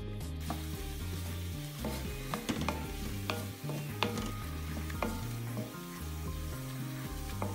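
Sliced onions sizzling as they fry in oil in a metal pan on their way to golden brown, starting about half a second in. A wooden spatula stirs them, with sharp knocks and scrapes against the pan now and then.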